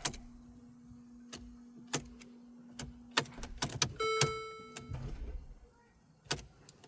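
Mercedes GLA45 AMG failing a start attempt: a steady low electrical hum for about three and a half seconds with scattered clicks, then a dashboard chime about four seconds in. The car tries to crank but can't.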